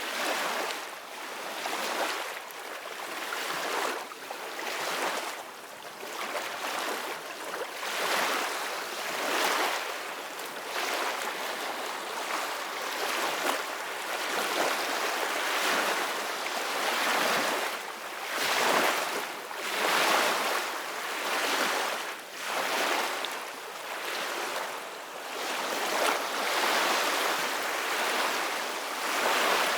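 Ocean surf: waves breaking and washing up a beach, a continuous hiss that swells and eases every couple of seconds.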